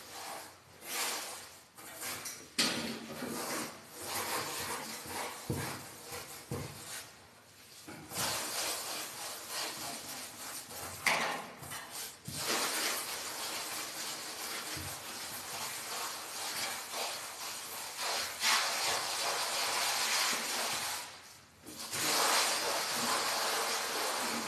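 Plastering float rubbed in circles over fresh fine finishing plaster on a wall, a scratchy rubbing hiss in long strokes broken by a few short pauses.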